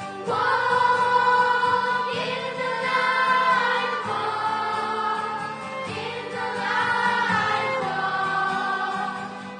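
A church hymn sung with instrumental accompaniment, the voices holding long notes.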